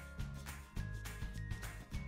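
Music with a steady beat of about four hits a second over a bass line.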